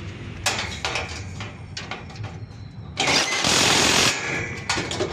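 DeWalt cordless impact driver on a long extension running a radiator mounting bolt in a burst of rapid hammering that lasts about a second, preceded by a few metallic clinks and knocks, over a steady low hum.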